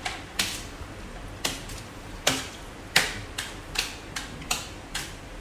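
Utensils clicking and tapping against plates and bowls at a meal: about a dozen sharp, irregular clicks.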